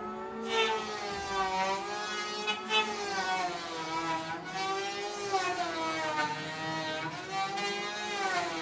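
Electric hand planer running with a high, whining motor tone whose pitch wavers up and down, dipping and recovering every second or two, with a few brief sharper spikes.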